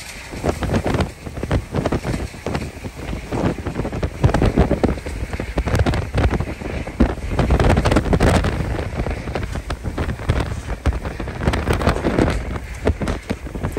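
Hurricane-force wind gusting in uneven surges, with heavy rain and wind buffeting the microphone: the violent turbulence of the hurricane's core.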